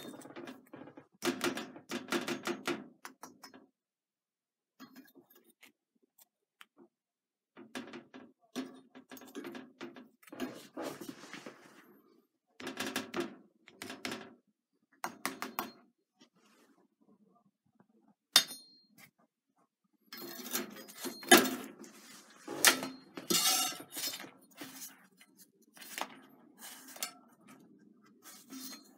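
Kitchen clatter: metal tongs clinking and scraping against the gas stove's grate and nearby pans as a chapati is turned and lifted off the flame. It comes in scattered bursts with short quiet gaps, busiest in the last third.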